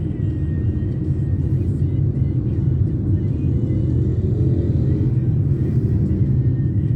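Steady road and engine rumble inside a moving car's cabin, with music playing faintly.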